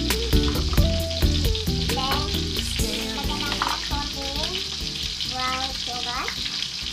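Food sizzling and crackling as it fries in a pan, with many sharp pops.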